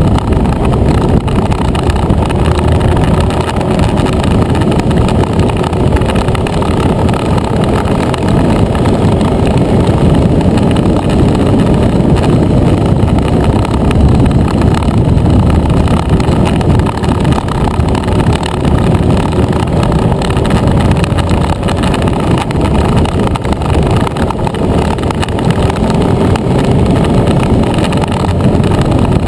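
Motor scooter engine droning steadily at road speed, heard from a scooter-mounted camera under heavy wind rumble, with the engine note drifting slowly up and down.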